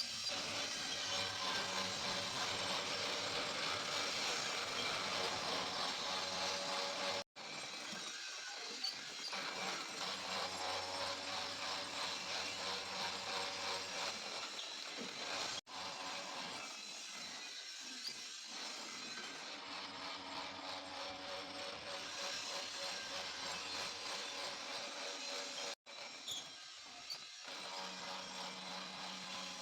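Steady mechanical workshop noise from metalworking on a truck wheel rim, broken by sudden cuts about a quarter, half and seven-eighths of the way through.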